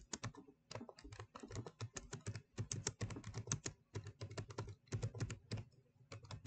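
Quiet typing on a computer keyboard: a quick, uneven run of key clicks with a short pause about half a second in and another near the end.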